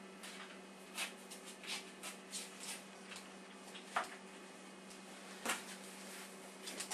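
Paintbrush strokes on canvas: short, irregular scratchy brushing and dabbing sounds, a few a second, over a steady hum.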